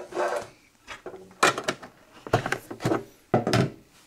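Metal collector tins being moved about and set down on a wooden tabletop: a series of sharp knocks and clunks, about five of them from a second and a half in.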